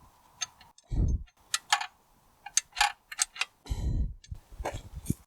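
Light clicks and clinks of metal parts and tools being handled while a pipe is worked loose inside a tractor axle case: a string of sharp separate ticks, with a couple of dull thumps about a second in and near four seconds.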